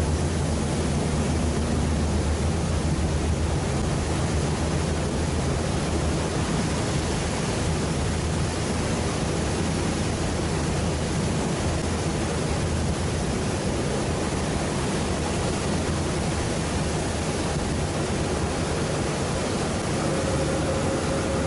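Fast passenger ferry under way: a steady rush of engine drone, wind and water, with a low hum that is strongest in the first few seconds. A faint steady whine comes in near the end.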